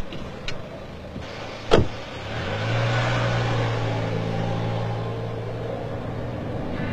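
A sharp click about two seconds in, then a car engine starts and runs steadily with a low even hum.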